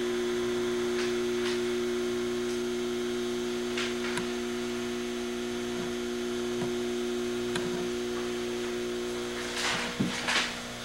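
Steady electrical mains hum, with a few faint clicks and, near the end, a short cluster of louder knocks.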